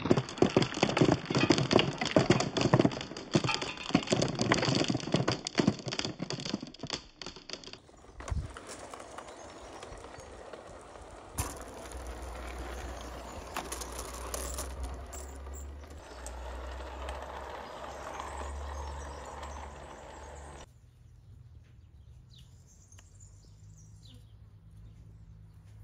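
Marbles clattering down a ramp of plastic track, a dense run of clicks for about eight seconds. Then a softer rolling sound with a low hum, from a toy train running along rail track. Near the end it goes quiet, with a few faint bird chirps.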